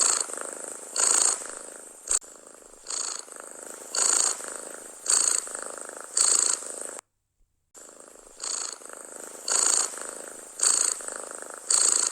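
Domestic cat purring loudly, close up, swelling with each breath about once a second. The sound cuts out completely for just under a second about seven seconds in, then resumes.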